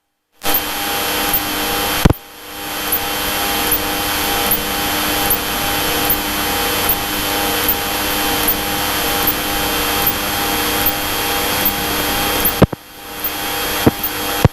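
Cessna's piston engine and propeller droning steadily, heard inside the cabin as a loud, even roar with steady hum tones. It is broken twice by a sharp click and a brief drop in level.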